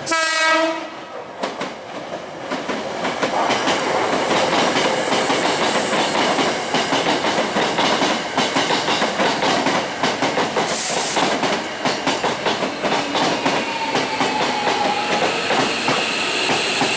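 Hankyu 7000 series electric train giving a short horn blast, then rolling along the platform with loud rumbling and the clickety-clack of wheels over rail joints. A faint falling whine comes later as it slows.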